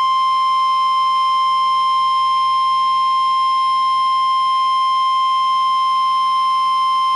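NOAA Weather Radio warning alarm tone: a single steady, loud 1050 Hz beep that signals an emergency alert is about to be read, here a severe thunderstorm warning.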